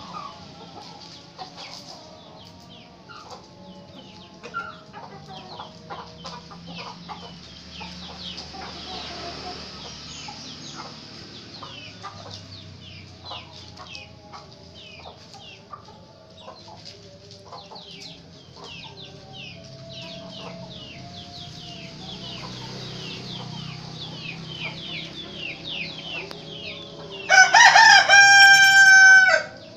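A rooster crowing once near the end, one long loud crow. Before it there are softer fowl calls and many short high chirps in the background.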